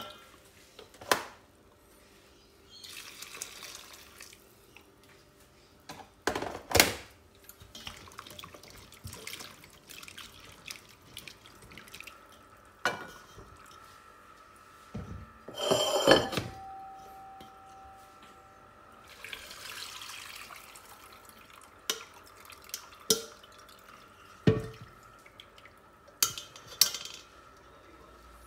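Stainless wire-mesh strainer clinking and knocking against a steel pot, with sharp clinks every few seconds and a longer clatter about halfway through, between splashing and dripping of hot water as the strainer of vegetables is dipped and lifted out.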